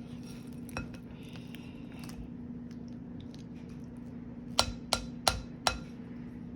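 Four sharp pops, about three a second, from fingers poking freshly activated homemade slime in a bowl, over a steady low hum.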